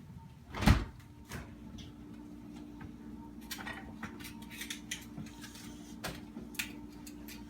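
Refrigerator door thumping shut about a second in, followed by a steady low hum with a few light clicks and knocks.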